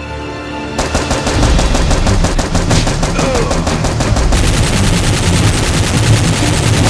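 Background music, then from about a second in, rapid continuous automatic gunfire, a machine-gun sound effect.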